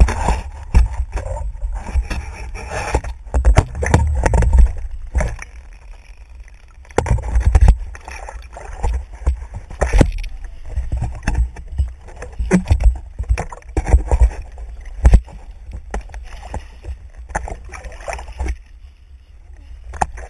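Water sloshing and splashing around a paddleboard, with frequent sharp knocks and bumps on the board close to the microphone over a constant low rumble.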